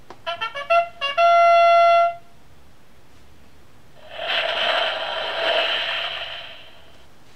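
Electronic sound-book speaker playing a short trumpet-like fanfare, a quick run of short notes ending in one held note, set off by a button press. About two seconds later a second button plays a longer rushing, hissing sound effect with a steady tone beneath it, lasting about three seconds.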